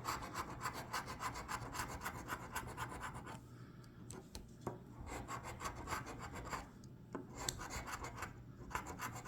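A scratch-off lottery ticket being scratched, its coating scraped away in quick rasping strokes that stop briefly a few times.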